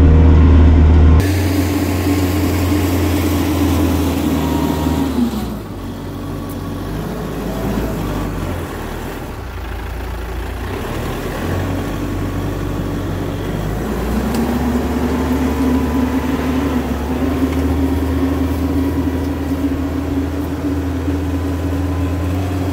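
Kioti RX7320 tractor's diesel engine running while pulling a homemade chisel plow through the ground. The engine's pitch falls about five seconds in, stays lower, and climbs back to a steady run about fourteen seconds in.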